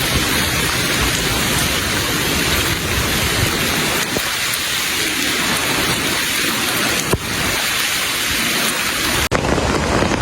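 Heavy rain falling, a steady dense hiss. About nine seconds in it cuts off abruptly to a duller rushing noise.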